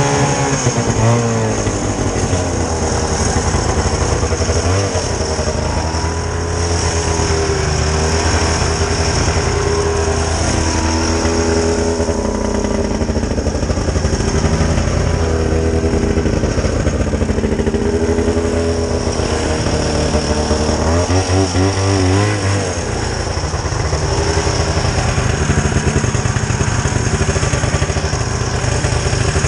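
Vintage snowmobile's small two-stroke engine running under way, its pitch rising and falling as the throttle is opened and eased, with a steady high whine over it.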